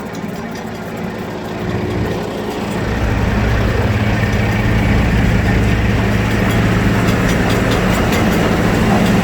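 Engine running with a steady low hum, getting louder about three seconds in and then holding steady.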